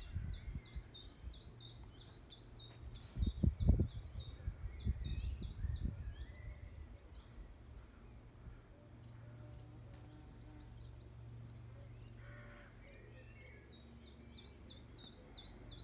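Wild songbird singing fast runs of high, short repeated notes, about six a second, near the start and again near the end. A low rumble comes in between, loudest about three to four seconds in.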